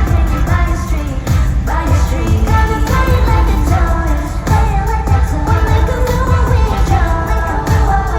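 Loud pop music with a singing voice over a heavy, pulsing bass beat.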